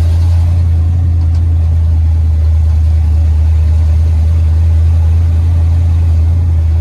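Classic Ford pickup truck's engine running at a steady speed, heard from inside the cab as a loud, constant low drone mixed with road noise.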